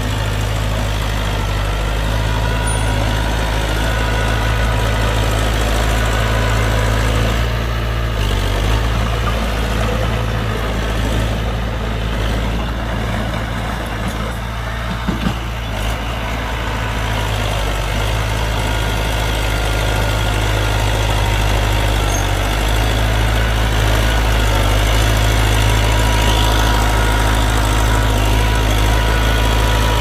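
Heavy diesel engine of a dump truck or bulldozer running steadily at a constant speed, with two short clicks about halfway through.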